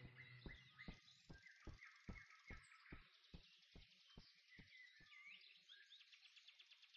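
Very faint woodland ambience: birds chirping, with a run of soft, evenly spaced ticks, about two or three a second, that fade out about halfway through.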